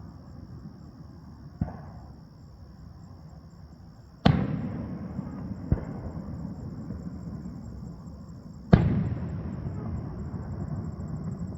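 Aerial fireworks shells bursting: two loud booms about four and a half seconds apart, each trailing off in a long rolling echo, with lighter pops between them.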